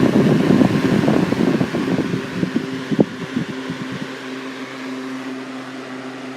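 Torcan 1163 10-inch box fan, with a shaded-pole C-frame motor and four plastic blades, running on high speed with a steady motor hum and rushing air. It is quite noisy and rattles from its unbalanced feet; the rattling stops about four seconds in, and the sound then grows gradually quieter.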